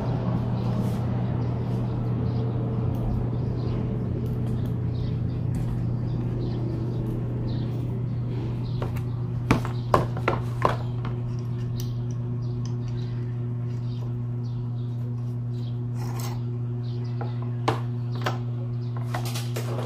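A steady low hum, with a quick cluster of three or four sharp clicks about halfway through and two more near the end, from parts and tools being handled while a scooter's front shock is taken apart.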